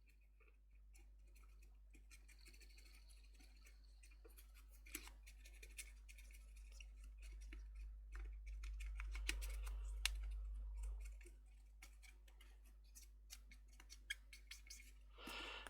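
Faint scratching and scrubbing with small scattered clicks: the soldered power-jack joints on a circuit board being scrubbed clean of flux with isopropyl alcohol, over a low steady hum.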